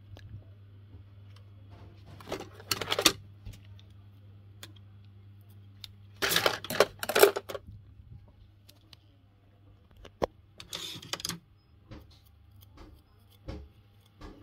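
Painting materials being handled at a table: a few short rustling scrapes and sharp light taps and clicks, in three or four clusters, over a low steady hum.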